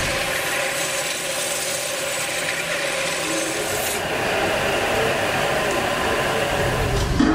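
Hand-held cutting tool scraping against a metal pot spinning on a lathe, peeling off shavings as the rim is turned. The scraping stops about four seconds in while the lathe keeps running.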